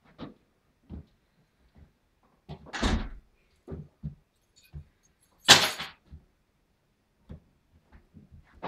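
Apartment front door being opened and shut in a small hallway: scattered knocks and thuds, a heavier thud about three seconds in and the loudest, sharpest bang about five and a half seconds in.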